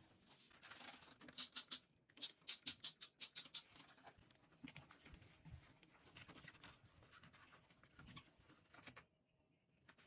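Cleaning cloth rubbed over a hard kitchen surface by rubber-gloved hands: quick back-and-forth wiping strokes, a brisk run of them in the first few seconds, then softer, slower wiping.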